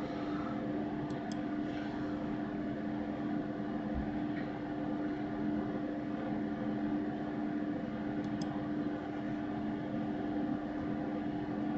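Steady hum of a computer's cooling fan: two low steady tones over an even hiss, with a few faint clicks.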